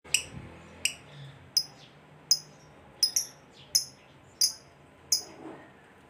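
Fischer's lovebird giving a series of about nine sharp, high-pitched chirps, evenly spaced at roughly 0.7 s, one of them doubled near the middle.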